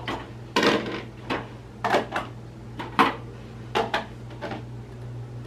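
Dishes clinking and knocking as bowls are handled and put away, with about seven separate clatters a second or less apart.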